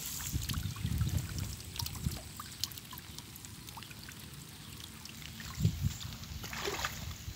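Water dripping and trickling from a bamboo fish trap just lifted out of the water, with scattered small clicks and low handling bumps.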